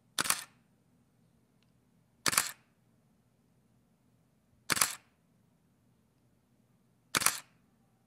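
Canon 5D DSLR shutter released four times, about two and a half seconds apart, with the lens mounted and the mirror flipping up and back on each shot. Each release is a brief double clack of mirror and shutter.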